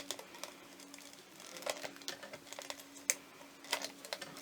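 Scattered light taps and clicks of cardstock pieces being handled and pressed down onto a handmade card, over a faint steady hum.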